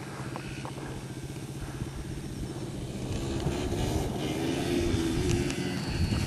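Yamaha sport quad engines running on a dirt track. One passes close at the start, and the engine sound gets louder from about three seconds in.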